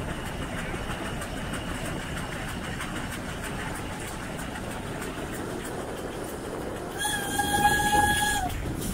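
1906 StEG-built 0-8-0 steam locomotive 414.096 running along the line, with a steady rattle of wheels and running gear on the rails. About seven seconds in comes one steam whistle blast, held for about a second and a half.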